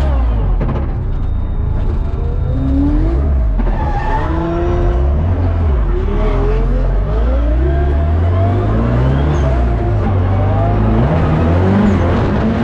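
Drift car's engine revving, its pitch rising and falling over and over as the throttle is worked through a run.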